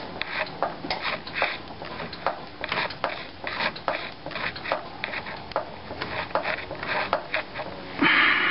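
Craftsman 50240 hydraulic floor jack being pumped by its handle: a run of clicks and knocks, about two a second, as the jack, freshly topped off with jack oil, rises under the car. A louder hiss comes near the end.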